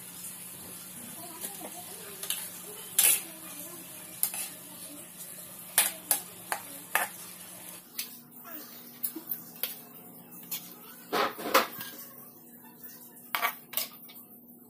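Metal spatula clinking and scraping against an aluminium wok while stirring and scooping the sauce, vegetables and fish: irregular sharp clinks, the loudest a few seconds in and again around eleven seconds.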